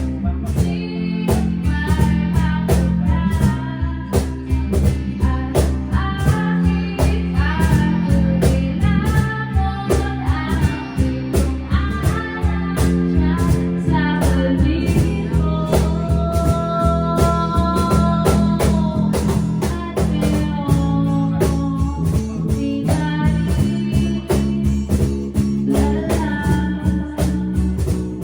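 Rock band jamming in a blues-rock style: drum kit keeping a steady beat, bass guitar, and electric guitar playing bending lead lines with some long held notes around the middle.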